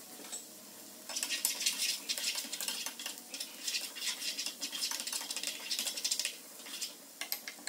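Spatula stirring and scraping a sofrito of diced onion and bell pepper frying in butter in a frying pan, a fast run of scraping strokes from about a second in until shortly before the end.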